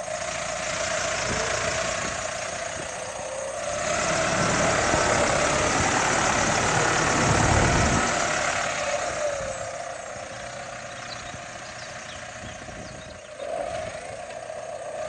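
Case JXU95 tractor's diesel engine running, swelling louder for several seconds in the middle as the tractor is driven, then settling back.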